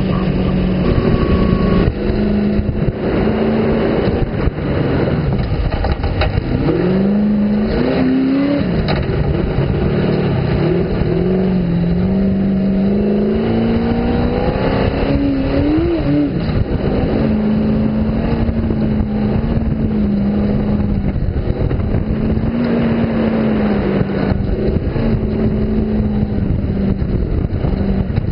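Sand rail engine running hard under load in the dunes, its pitch rising and falling repeatedly as the throttle works, most about a quarter to halfway through, then holding steadier.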